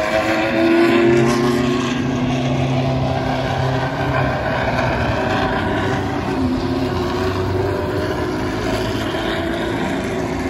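Engines of historic pre-1985 Formula 1 cars running as the cars roll past one after another on the pit straight, a steady engine drone with a slight drop in pitch in the first couple of seconds.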